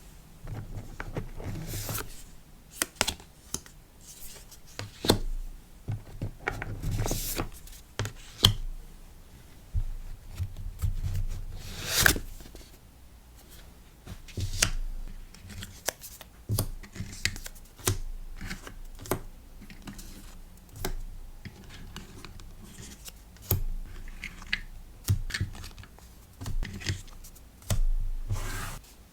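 Hands packing a sticker order: irregular taps, rustles and short tearing sounds of paper and plastic packaging, close up.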